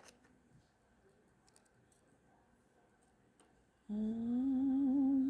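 A few faint clicks of small screwdriver parts being handled, then, about four seconds in, a person humming one wavering note for about a second and a half; the hum is the loudest thing.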